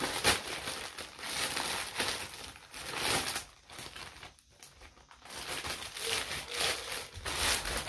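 Plastic poly mailer bag crinkling and tearing as it is pulled open by hand, in irregular bursts with a short lull about halfway through.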